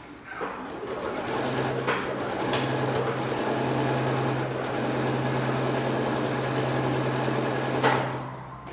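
Electric domestic sewing machine stitching through a quilt's edge. It picks up speed over the first second or so, runs steadily, then stops with a click near the end.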